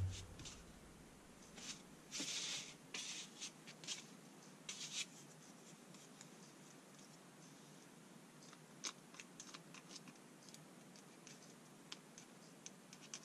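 Faint handling sounds of a ratchet head and a pump oil can while oil is squirted into the ratchet: a few short rustling scrapes in the first five seconds, then scattered small clicks.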